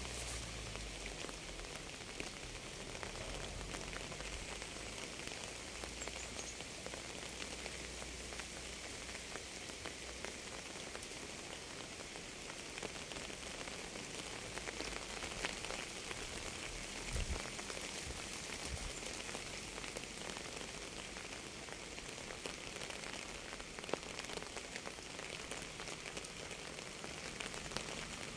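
Steady rain falling on a surface: an even hiss with many individual drops ticking through it, and a couple of brief low thumps about two-thirds of the way through.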